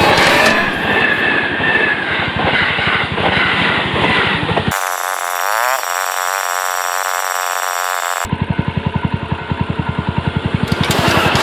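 Suzuki Grasstracker BigBoy's 250 cc single-cylinder engine running with an even, thumping beat, picking up revs near the end. For about three and a half seconds in the middle it is abruptly replaced by a different sound, a thin hiss with a rising whine, that starts and stops suddenly.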